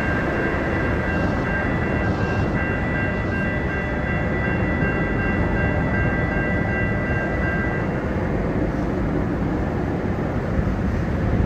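Railroad grade-crossing warning bell ringing in steady repeated dings, stopping about eight seconds in, over a steady low rumble.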